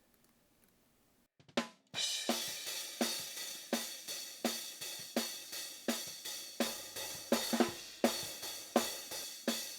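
Recorded hi-hat track played back, with other drums of the kit bleeding in faintly. A steady groove of hi-hat strikes and accented hits, about one and a half main strokes a second, starts about two seconds in after near silence.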